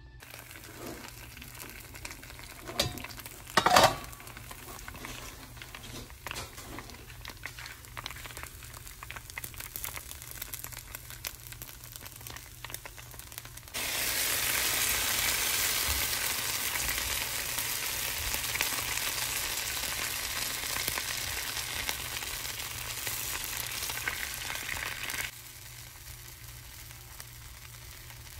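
Khanom krok batter with green onions frying in a dimpled pancake pan: a loud, even sizzle that starts abruptly about halfway through and cuts off suddenly near the end. Before it, quieter kitchen handling clatter with one sharp knock a few seconds in.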